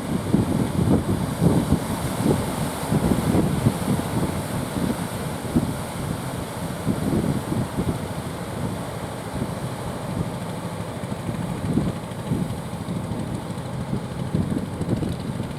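Strong wind buffeting the microphone in irregular gusts over a low, steady rumble. The gusts are heaviest in the first half and ease somewhat later.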